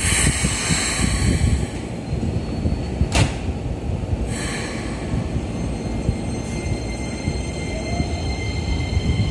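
Keikyu New 1000 series electric train departing: bursts of air hiss and a single sharp clunk as the doors shut, then steady high whining tones from the electric traction motors as the train pulls away.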